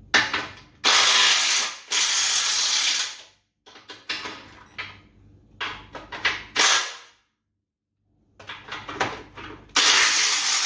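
Ryobi cordless impact wrench undoing chassis bolts on a Holden HQ front crossmember. It runs in several bursts of a second or so, with shorter clicks and knocks between them.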